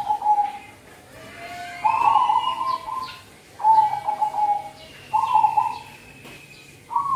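Zebra dove (perkutut) cooing: about five short, warbling coo phrases, each about half a second to a second long, with short pauses between them. Faint high chirps from other small birds sound between the phrases.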